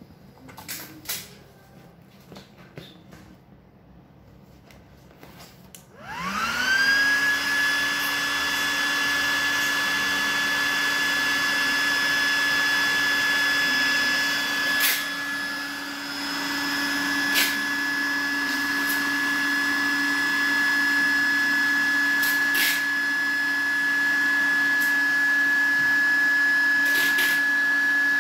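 Small electric air pump switched on about six seconds in, spinning up quickly and then running steadily with a high whine as it inflates a vinyl inflatable pool. A few light handling clicks come before it starts.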